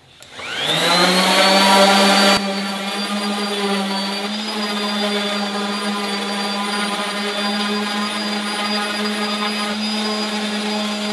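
Electric random orbital sander switched on and spinning up to speed within about a second, then running steadily while pressed onto a wooden board. About two seconds in it settles slightly lower and quieter as it bites into the wood, sanding down and rounding the board's edges.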